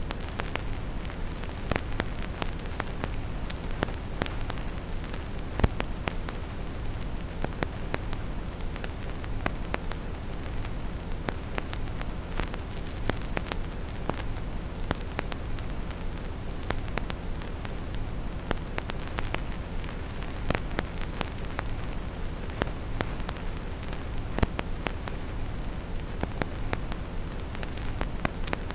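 Vinyl record crackle: irregular small pops and clicks from a stylus in the groove, laid over steady brown noise that is strongest in the bass.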